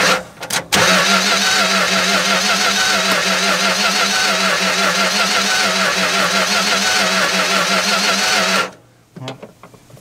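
Dodge 318 polyhead V8 running steadily while its distributor is turned by hand to bring the ignition timing back to about optimum after advancing it until it kicked back. Just under a second in the sound dips briefly, and about nine seconds in it cuts off suddenly.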